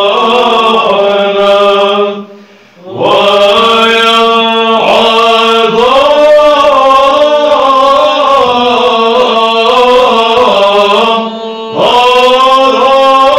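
Male monks singing Byzantine chant in Arabic: a moving melody over a steady held drone note (ison). The singing breaks off for a short breath pause about two seconds in and again briefly near the end.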